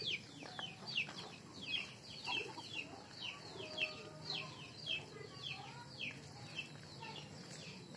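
Chicks peeping: a steady run of short, high chirps that fall in pitch, about three a second.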